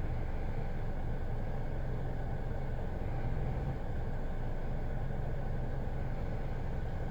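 Kia Ray's three-cylinder petrol engine idling with a steady low hum that swells and sags slightly. This is the rough idle and RPM fluctuation the owner is chasing, still present after new spark plugs and ignition coils and a cleaned throttle body and injectors.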